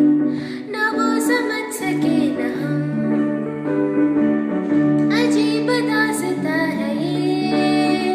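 Slow song: a female voice singing a wavering melody over sustained keyboard chords.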